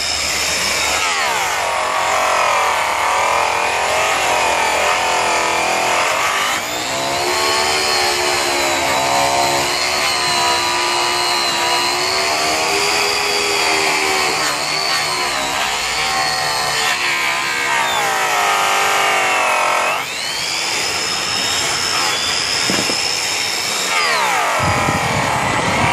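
Electric rotary polisher spinning a yellow airway buffing wheel loaded with rouge against an aluminum truck wheel. The motor whine dips in pitch as the buff is pressed into the metal and rises again as the pressure eases, several times.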